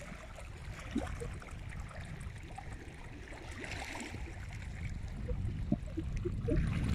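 Small waves lapping and splashing against a rocky lakeshore, with wind rumbling on the microphone that grows louder near the end.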